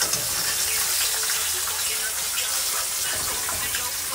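Chicken wings shallow-frying in oil in a pan, a steady sizzling hiss, with a few faint clicks of metal tongs as the pieces are turned.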